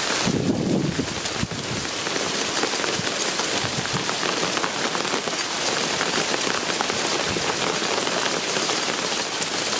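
Heavy rain falling hard onto surfaces: a steady, loud hiss dense with tiny impacts. A brief low rumble comes about half a second in.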